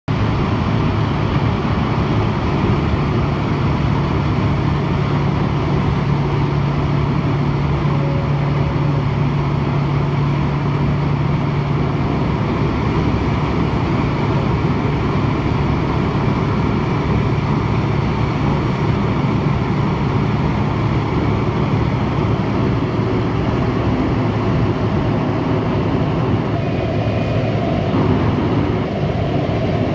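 Wirtgen cold milling machine at work, its diesel engine and cutter drum grinding up a concrete deck in a loud, steady din.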